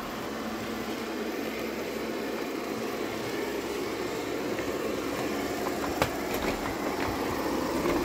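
Xiaomi Mi Robot Vacuum-Mop Essential running in edge-cleaning mode: a steady whirr of its suction fan and spinning side brush that slowly grows louder. A few short knocks come about six to seven seconds in.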